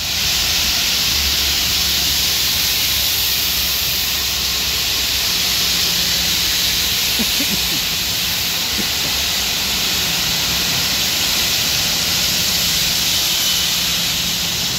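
Soybeans pouring steadily out of a gravity wagon's unloading chute through a steel grate into an elevator pit: an even rushing hiss, with a low steady hum underneath.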